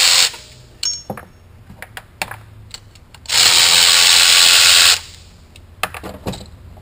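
Cordless electric ratchet running the nuts off a turbocharger's wastegate actuator. One run ends just after the start and a second run of about a second and a half comes near the middle, with light metallic clicks and clanks of the tool and parts being handled between the runs and afterwards.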